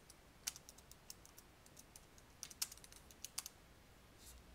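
Faint typing on a computer keyboard: an irregular run of key clicks with short pauses between bursts.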